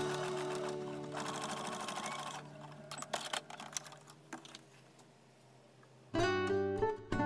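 Acoustic guitar background music, its notes ringing out, with an Elvira domestic sewing machine running in a short, fast burst of stitching about a second in and a few clicks after it stops. Strummed guitar comes back loudly near the end.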